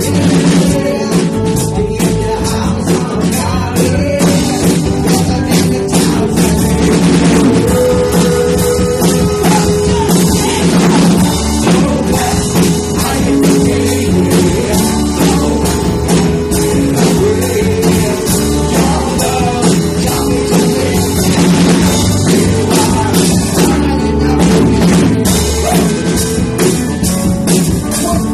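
A small rock band playing live: drum kit keeping a steady beat under electric bass and electric guitar played through small amplifiers.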